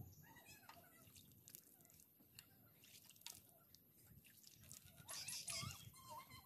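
Faint splashing and dripping of well water as a man scoops it from a bucket and washes his face, with a louder splash about five seconds in.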